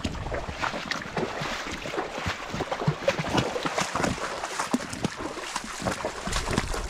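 Irregular crunching and rustling of footsteps and gear as a hiker walks a trail carrying a heavy backpack.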